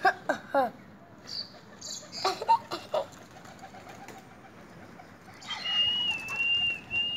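Caged common myna giving a string of short, harsh gliding calls and squawks in the first three seconds. About five and a half seconds in, a steady high whistle starts and holds, wavering slightly.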